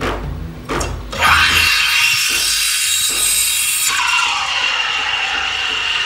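Sage Bambino Plus steam wand starting its automatic frothing cycle in a jug of soy milk. A couple of knocks and a low machine drone, then a loud steam hiss about a second in. About four seconds in the hiss turns steadier and less bright.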